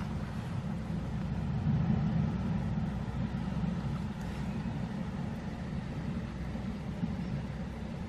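Shallow water rushing and churning around rocks: a steady low rumble with a fainter hiss over it.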